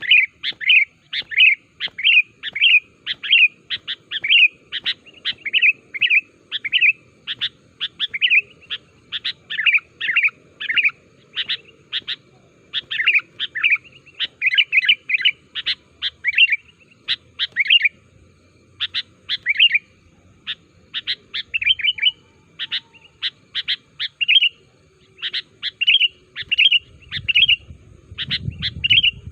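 Sooty-headed bulbul (kutilang) singing vigorously: short, bright whistled notes repeated about twice a second in quick clusters, with brief pauses. This is the full, lively song used as a lure call for other bulbuls.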